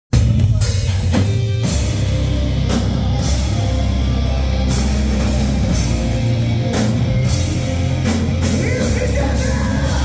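Live heavy rock band playing loud, with distorted electric guitars, bass and a drum kit with repeated cymbal crashes.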